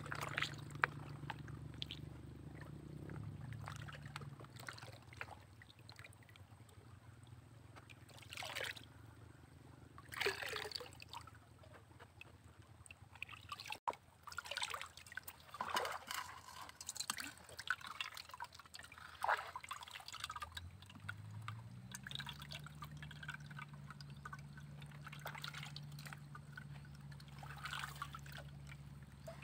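Water splashing, trickling and dripping as gravel is washed in a gold pan in a shallow stream and the pan is tilted to drain. A low hum fades out in the first few seconds and returns about twenty seconds in, rising in pitch and then holding steady.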